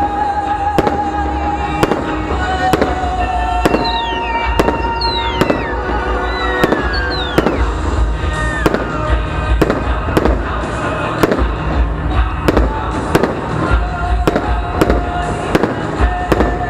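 Fireworks display: aerial shells bursting in a quick run of bangs, about one to two a second, with several falling whistles in the middle.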